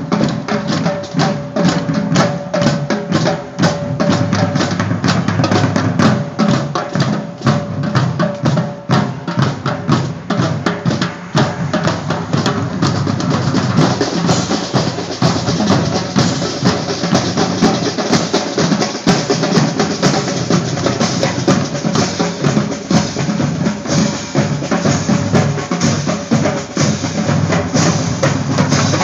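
Marching drumline playing as it walks: bass drums and snare drums struck in a fast, dense rhythm.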